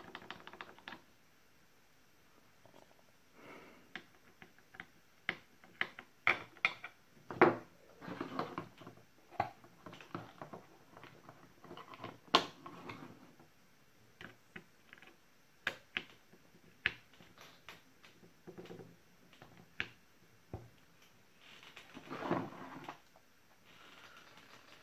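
Scattered clicks, taps and knocks of a small screwdriver and the plastic housing and trigger-switch parts of an opened Ferton 18V cordless drill being handled on a workbench, with louder knocks about seven and a half and twelve seconds in and a short scraping rustle near the end.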